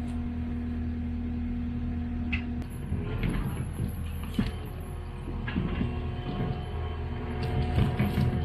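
Takeuchi TL12 tracked loader's diesel engine running steadily. About two and a half seconds in the note changes and knocks and clanks come in as the machine is worked.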